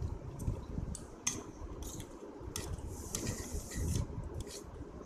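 Metal fork clinking and scraping against a steel plate while picking up noodles: several sharp clinks, then a longer scrape a little after three seconds in.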